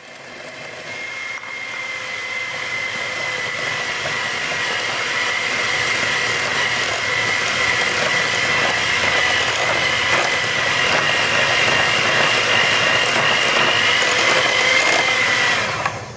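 Electric hand mixer running steadily with a high motor whine, its beaters creaming butter and sugar in a glass bowl. It gets louder over the first few seconds and stops just before the end.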